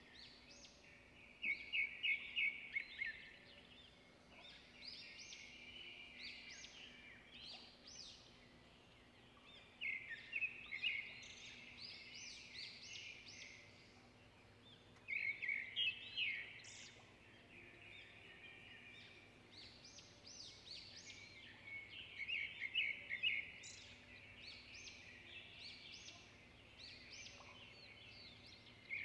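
Birds chirping, with louder bursts of rapid, high trills every several seconds, about a second and a half in, around ten, fifteen and twenty-two seconds in, and again at the end.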